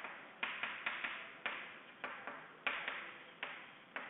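Chalk writing on a chalkboard: an uneven run of sharp taps, each trailing into a short scratch, about three strokes a second.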